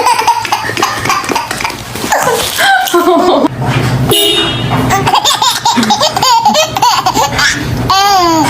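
Baby laughing in repeated bursts of belly laughs and giggles.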